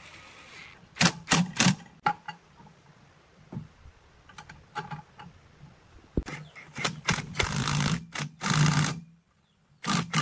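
Cordless DCA impact driver with a socket run in short bursts to drive a bolt on a fan stand's bracket: three quick blips about a second in, a few light clicks, then two longer runs of about a second each and a last short burst near the end.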